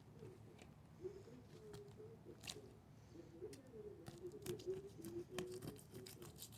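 Fillet knife cutting through a redfish's throat and flesh: faint wet squishing with a run of small clicks and scrapes about four seconds in. A faint wavering low hum runs underneath.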